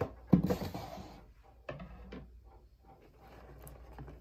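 Small plastic toy parts and their plastic bag being handled on a table: a sharp knock about a third of a second in, then about a second of crinkly rustling, and a couple of lighter clicks about two seconds in.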